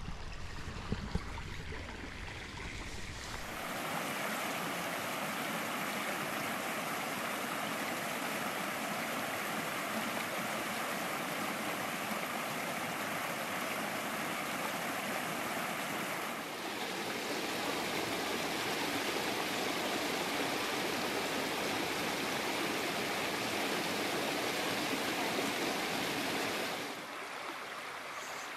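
A small rocky brook rushing over stones and a little cascade, a steady wash of water noise. It comes in about three and a half seconds in, after a few quieter seconds, and drops away near the end.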